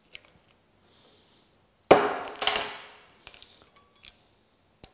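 Two hammer blows on a transfer punch, about half a second apart, the first the loudest and the second ringing metallically, denting a hole centre into a cast aluminium way wiper through the template's hole. A few light metal clicks follow as the punch is handled.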